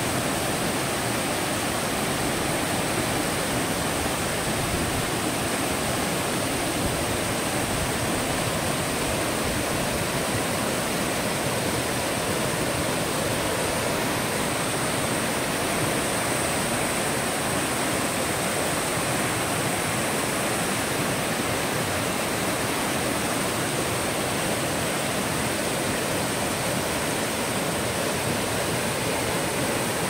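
Waterfall and the rocky stream below it rushing over rocks: a steady, even rush of falling and tumbling water.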